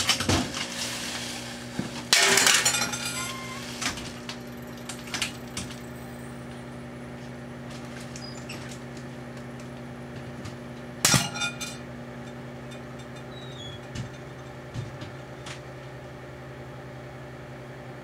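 Microwave oven running with a steady hum while small xenon light bulbs inside it arc and pop. There are sharp crackling bursts of glass just after the start, about two seconds in and again around eleven seconds, with scattered smaller clicks and clinks in between.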